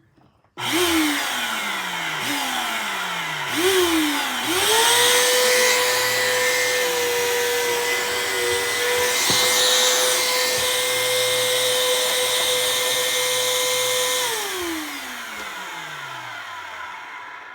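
Bissell vacuum cleaner motor switched on and off three times in quick succession, each time spinning down with a falling whine. Then it spins up to a steady high whine, runs for about ten seconds, is switched off and winds down with a falling pitch near the end.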